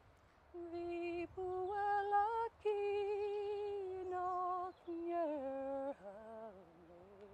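Unaccompanied woman's voice singing a slow air in long held notes, in a few short phrases, the melody stepping down lower in its last few seconds.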